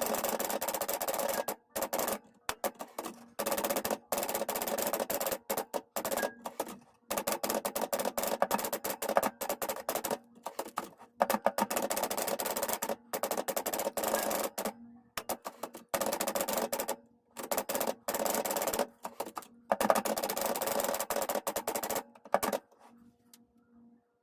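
1969 Adler J5 manual typewriter being typed on: rapid runs of keystrokes with short pauses between them. The typing stops near the end.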